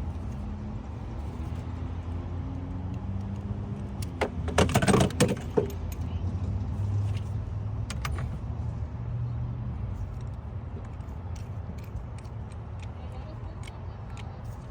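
Metal tools and parts being handled: a burst of clinking and rattling about four to six seconds in, then scattered light ticks, over a steady low hum.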